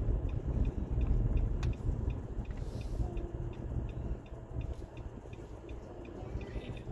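Car road noise heard from inside the cabin: a steady low rumble of tyres and engine while driving, easing a little in the second half.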